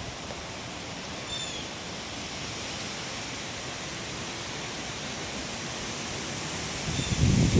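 Steady hiss of rain falling, with a short high chirp about a second in.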